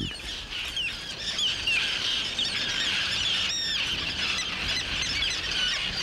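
A roseate tern colony calling: many high, short chirps overlapping steadily, with one louder, sharper call about three and a half seconds in.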